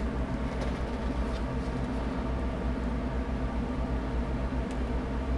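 Steady low hum with a constant hiss, with a couple of faint rustles as a paper booklet is handled.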